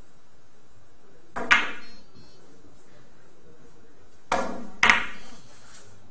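Billiard balls clacking sharply: the cue striking the cue ball and balls colliding on the table, a pair of clicks about a second and a half in and another louder pair about four and a half seconds in, each ringing briefly.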